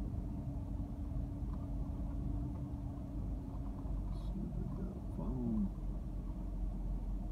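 Car cabin rumble from the engine and tyres while driving slowly, with a steady hum that fades out about four seconds in. A few short sliding, voice-like whines come in around five seconds.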